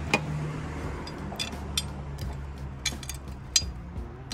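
A few light clicks and clinks of small metal fasteners being handled, spaced irregularly over a steady low hum.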